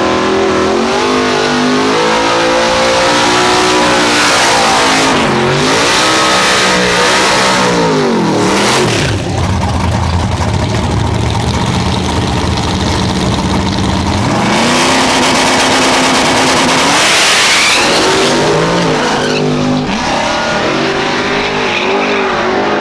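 Drag race car engines revving hard, the pitch climbing and dropping again and again, with a heavier, lower run about halfway through.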